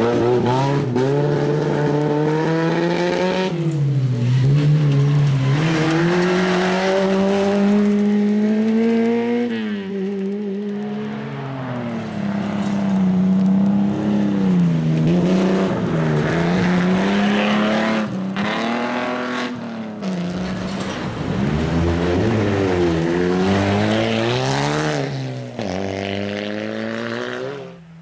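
Fiat 131 Abarth rally car's four-cylinder engine driven hard on a gravel stage, its revs climbing and falling over and over through gear changes and throttle lifts. The engine sound stops abruptly just before the end.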